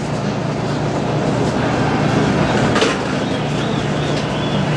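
Dexter T-300 double-load commercial washer running in its hot wash, water in the drum, a steady mechanical running noise over a constant low hum. One short knock a little under three seconds in.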